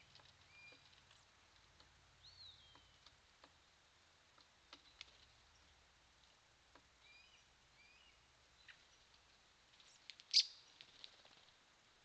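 Songbirds calling: scattered faint whistled notes and short chips, one slurred downward note a little over two seconds in, and a sharp, louder chirp about ten seconds in.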